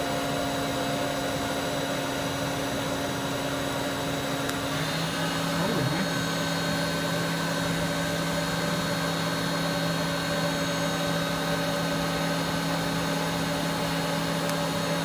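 Spindle of a Kitamura Mycenter 4 CNC vertical machining center spinning near its top speed of about 11,000 RPM, a steady whine of several tones. About five seconds in the pitch mix changes as a new lower steady tone joins.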